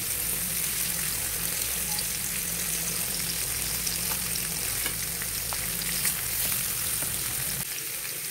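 Chicken pieces sizzling as they fry in oil in a flat pan, with a few light clicks of metal tongs turning them. A low steady hum underneath cuts off near the end.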